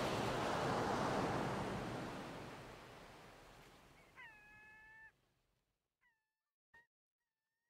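A broad rushing noise fades away over the first three seconds. Then comes one short pitched cry, slightly rising at its start and then level, followed by fainter echoing repeats and a single soft click.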